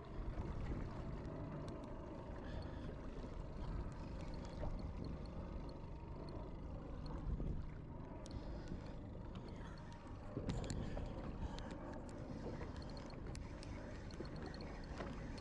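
Steady low hum of a boat's motor with wind and water noise, and light rapid ticking from a spinning reel being wound, clearest near the end.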